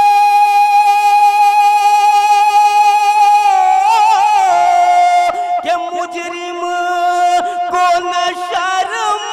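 Naat reciter's unaccompanied voice holding one long, high sung note. About three and a half seconds in it breaks into quick ornamental turns and runs, then settles onto a slightly lower held note.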